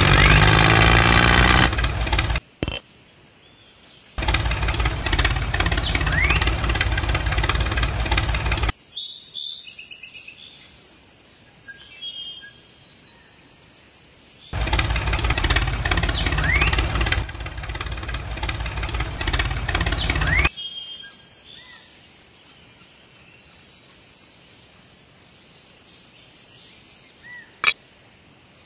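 Engine running in three stretches, a little over two seconds at the start, about four seconds from about four seconds in, and about six seconds from about fourteen seconds in, with quick even firing pulses and a brief rise in pitch now and then. Between the stretches, birds chirp faintly, and a sharp click comes near the end.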